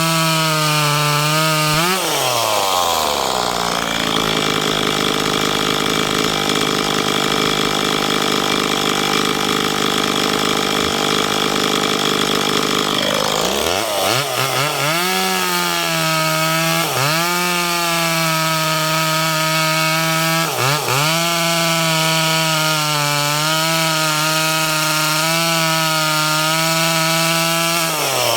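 Ferrino chainsaw cutting firewood. It runs at high revs, then drops in pitch about two seconds in as the chain bites into the log and labours through the cut for about ten seconds. It revs back up when the cut ends, dips briefly twice, and bogs down again right at the end as it enters the next cut.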